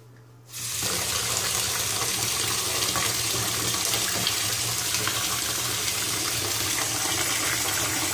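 Kitchen tap turned on about half a second in, then running steadily, its stream splashing into a plastic basin of water standing in a stainless-steel sink.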